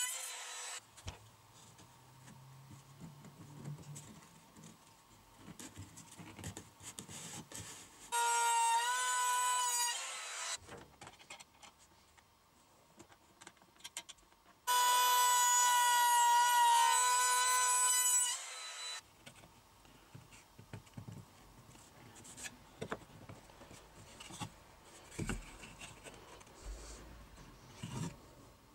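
Trim router motor whining at high speed in two runs, about two seconds and then about three and a half seconds, routing a pine board; its pitch dips slightly under load. Between and after the runs, quiet clicks and knocks of wood and clamps being handled.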